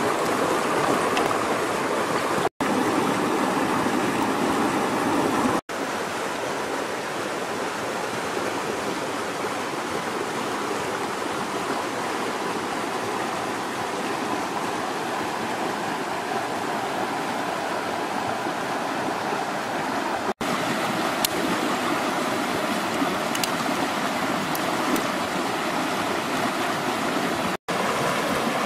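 Stream water flowing over rocks, a steady rushing that drops out for an instant four times.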